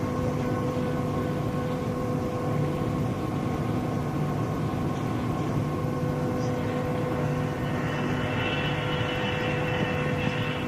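A steady mechanical drone with a constant hum, running evenly without change.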